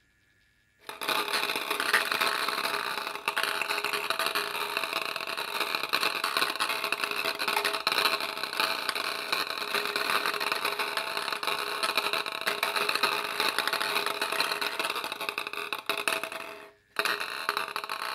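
Table-tennis balls tumbling and bouncing down through the pins of a slowly rotating, motor-driven disc sculpture: a dense, continuous patter of light clicks and ticks over a steady hum. It starts about a second in and breaks off briefly near the end.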